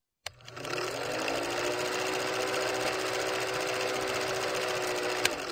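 Film projector running: a fast, even mechanical clatter with a steady whir that rises in pitch as it spins up over the first second, and a sharp click near the end.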